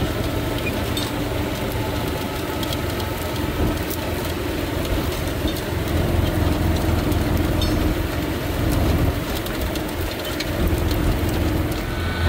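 Tractor engine running steadily while pulling a John Deere MaxEmerge Plus row-crop planter, with the planter's row units clattering over the soil.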